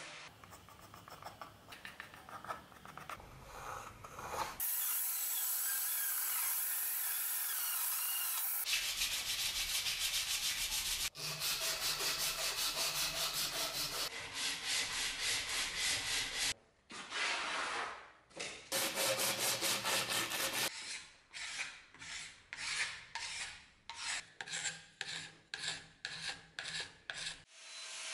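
Hand rasp and file strokes scraping a beech axe handle, in several short cut-together stretches. Irregular scraping and a stretch of steady hiss give way to runs of rhythmic strokes, ending with even strokes about one and a half a second.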